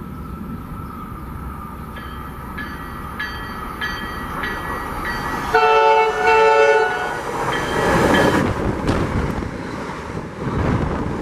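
MBTA commuter rail train approaching with a cab car leading. A bell dings about every half second, then the horn sounds two loud blasts close together, the loudest part. After that the bilevel coaches pass close by with a rush of wheel and rail noise.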